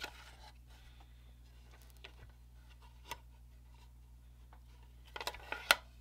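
Light clicks and taps of small hobby tools, tweezers and a steel ruler, being handled on a wooden work jig, over a low steady hum. A quick cluster of taps comes near the end, with the loudest tap just before it stops.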